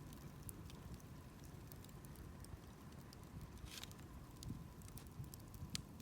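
Campfire burning quietly: scattered small crackles and ticks over a low steady rumble, with a louder crackle a little before four seconds in.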